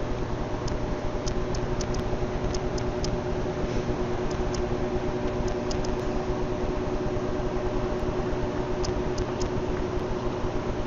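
A steady mechanical hum with hiss, holding two even tones throughout, with faint scattered high ticks.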